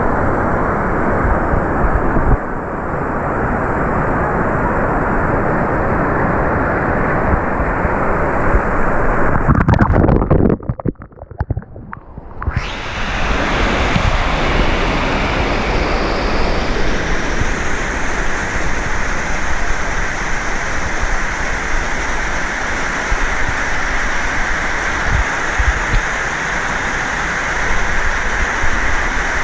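Steady rush of water cascading down a man-made volcano waterfall, dropping away for about two seconds near the middle and then coming back.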